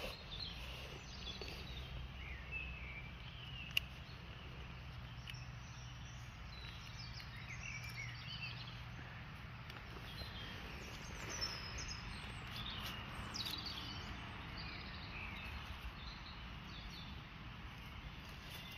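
Small birds chirping and calling on and off, over a steady low rumble, with one sharp click about four seconds in.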